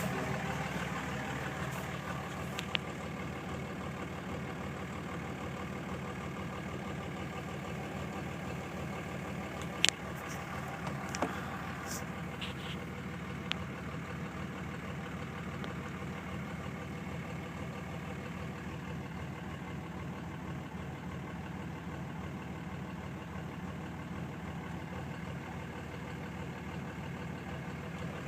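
2006 Cummins straight-six turbodiesel idling warm with a rough idle, the fault the owner is showing. A few short sharp clicks stand out over the steady running, the loudest about ten seconds in.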